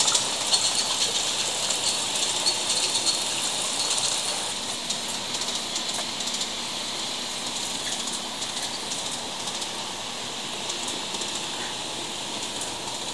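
Large-scale model train running along an overhead shelf track: a steady hiss, a little louder for the first few seconds.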